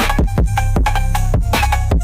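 Background music: an electronic track with a steady drum-machine beat, heavy bass and short melodic notes.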